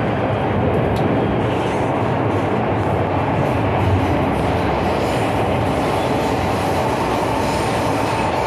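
Inside a moving MTR M-Train carriage on the Tsuen Wan line: the steady rumble and rattle of the train in motion. A faint high steady tone comes in about halfway through.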